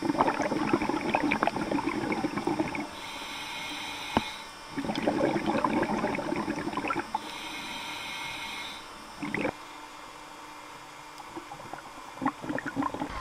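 Scuba regulator breathing heard underwater: two long gurgling rushes of exhaled bubbles, each followed by a steady hissing inhale. A short bubble burst comes after them, and a few small clicks near the end.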